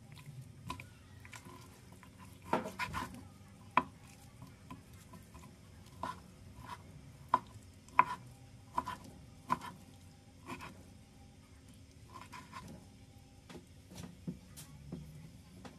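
Chef's knife cutting raw chicken breast into chunks on a wooden cutting board. The blade knocks on the board in a slow, uneven series of about one cut a second.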